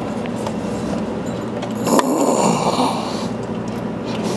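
Ratchet wrench working a fitting on an engine's oil catch can: a sharp click about two seconds in, then about a second of rasping noise, over a steady low hum.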